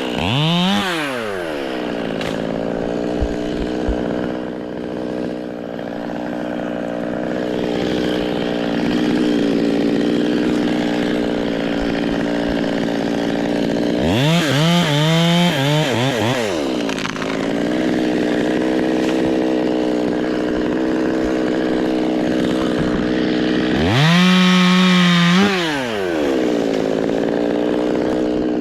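Two-stroke chainsaw running, revs falling to a steady idle in the first couple of seconds. It is then throttled up to high revs twice, each rev lasting about two seconds before dropping back to idle, once about halfway and once near the end.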